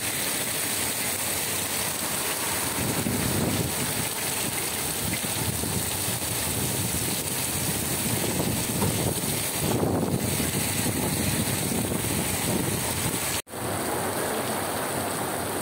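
Heavy rain falling as a steady rushing hiss, with no pause in the downpour; the sound breaks off for an instant about thirteen seconds in and picks up again.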